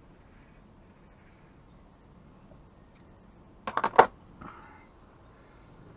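Quiet room tone, then about three and a half seconds in a quick cluster of sharp metallic clinks and rattles as a spark plug and deep socket are handled together, followed by a brief soft rustle.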